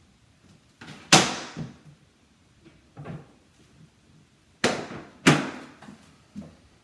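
Sharp clacks and knocks as magnetic guide strips are taken off a magnetically receptive feature wall and handled. There are three loud ones, one about a second in and two close together near five seconds, with softer knocks between.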